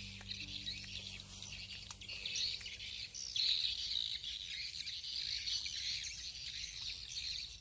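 Birds chirping in a continuous high-pitched outdoor chorus.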